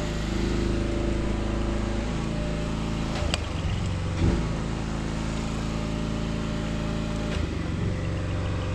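A boom lift's engine running steadily. Its tone changes about two seconds in and again near the end, as the boom's hydraulics take and drop load. Two short knocks come around the middle.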